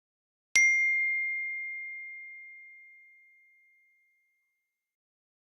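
A single bell-like ding: one clear high tone struck once about half a second in, fading away slowly over about three seconds.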